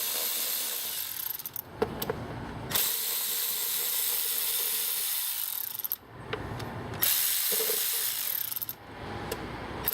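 Hand ratchet wrench clicking in three long runs, loosening fasteners on the engine to get at the ignition for a spark check.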